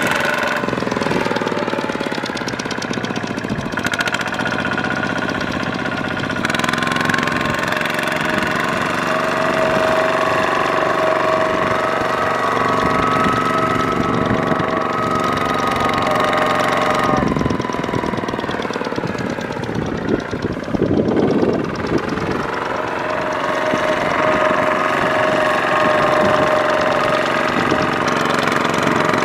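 Single-cylinder Kubota diesel engine of a two-wheel walking tractor running hard under load, its wheels churning through deep mud. The engine note changes abruptly several times.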